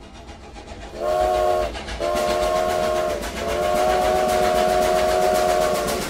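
Train sound effect: a low rumble grows louder, then a train whistle sounds three times in a chord of several tones, a short blast about a second in, a second one right after, and a long third blast held until near the end.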